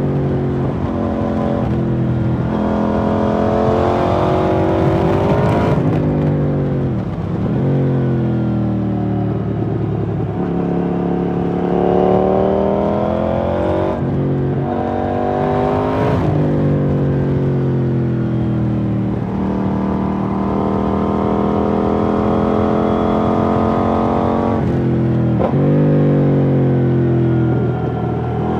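KTM 790 Duke's parallel-twin engine through an IXRace MK2 aftermarket exhaust, revving up through the gears. The pitch climbs again and again and drops sharply at each gear change, with some falling stretches as it slows.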